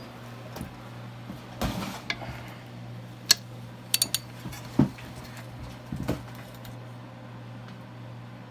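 Scattered sharp metal clinks of a Torx socket and wrench on a heated bell-housing bolt as the stuck bolt is worked loose, over a steady low hum.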